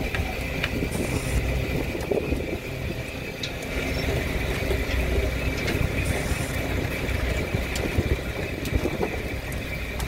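Snow crab boat's engine and net-hauling machinery running steadily: a low rumble with a constant high whine over it, and scattered light clicks and knocks.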